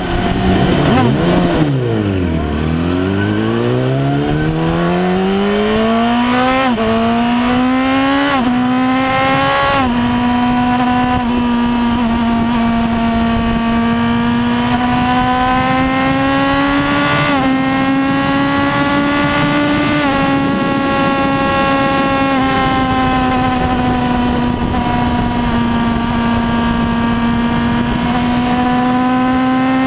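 2008 Yamaha YZF-R1's 998 cc inline-four engine accelerating hard on the highway. The revs dip briefly, then climb with the pitch dropping back sharply at several upshifts, and the engine then holds a high, nearly steady pitch at speed.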